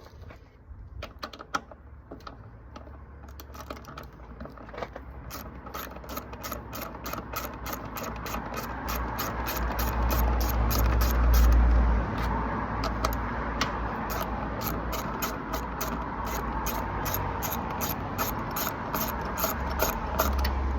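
Socket ratchet clicking while undoing a 10 mm bolt on the motorcycle's fuel tank bracket: a long steady run of clicks that grows louder, with a low rumble underneath.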